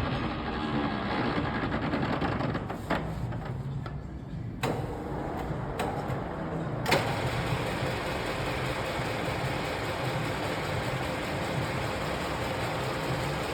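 Parkson 2N universal milling machine running under power, its 7.5 hp main motor and gearing making a steady mechanical whir. About halfway through, a louder, hissier running sound sets in and stays steady.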